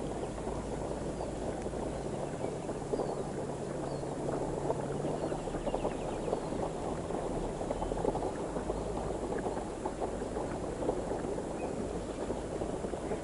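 Steady wind noise buffeting the microphone, with a faint low hum underneath.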